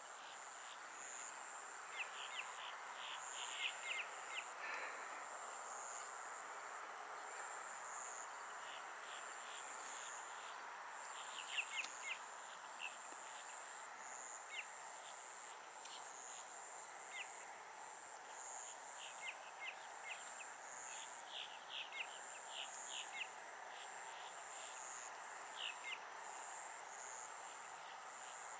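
Insects trilling in a steady, high, pulsing drone, with runs of quick short chirps every few seconds over faint background noise.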